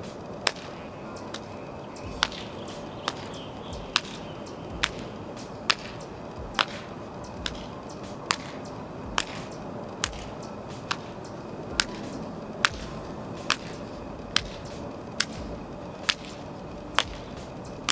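Rhythmic sharp slaps from a person doing cheer-style jumping jacks, one with each jump, about one every 0.9 seconds.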